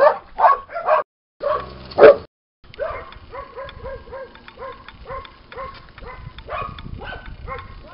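Dogs barking loudly in the first two seconds. After a cut comes a steady run of short, high-pitched squeaky cries, about three a second.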